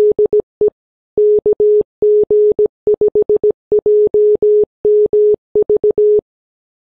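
Morse code (CW) sent as a single steady beep of about 450 Hz, keyed in dots and dashes that spell out the ham-radio callsign KG5JMV.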